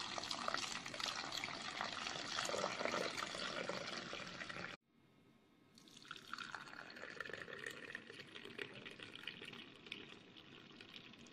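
Hot masala tea poured in a thin stream from a height, splashing and frothing into a steel bowl, then after a short break a quieter pour filling a brass tumbler. The tea is being poured back and forth to cool it and work up froth.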